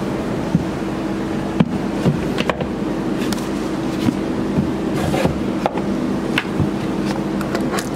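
Scattered knocks and clatter as a pair of cowboy boots is handled and set into a locker, over a steady low hum.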